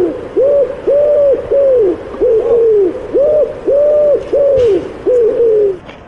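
A bird calling a rapid series of short hooting notes, about two a second, each rising and then falling in pitch. The calls stop near the end.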